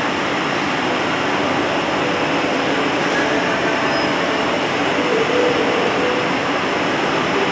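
Steady roar of a glassblowing hot shop: gas-fired glory holes and torches burning with ventilation fans running, an even, unbroken noise.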